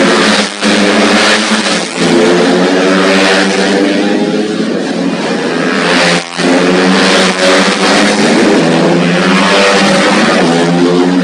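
Small racing motorcycle engines running at high revs, the pitch climbing and dropping with throttle and gear changes, broken by a few brief dips.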